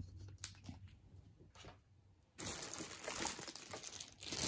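A few light clicks of plastic parts being handled, then, about two and a half seconds in, plastic packaging wrap starts crinkling as a wrapped part is pulled from the box.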